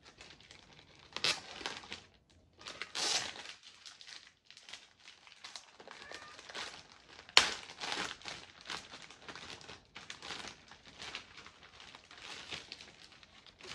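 Clear plastic wrapping crinkling and rustling in irregular bursts as it is handled and pulled free of sticky tape, with one sharp snap about halfway through.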